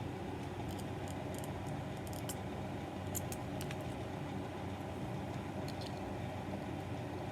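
Light clicks and taps of small plastic stand parts and Lego pieces being handled and fitted together, scattered through the first few seconds and a couple more near the end, over a steady low background rumble.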